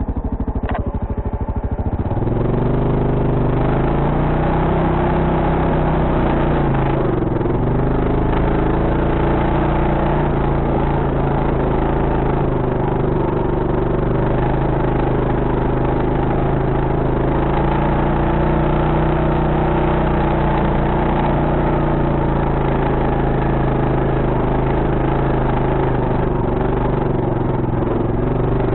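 ATV engine running under load as it drives, revving up about two seconds in, then its pitch rising and falling with the throttle.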